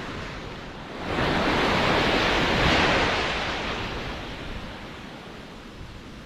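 Ocean surf: a wave breaks about a second in, rushes loudly for a couple of seconds and slowly fades as it washes out.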